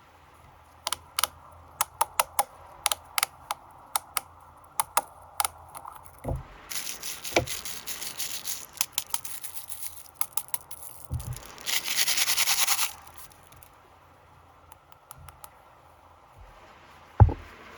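Crinkly snack packaging handled close to the microphone: a run of sharp crackles, then denser crinkling and a loud rustling rip lasting about a second, with a few soft thumps of the pack being set down.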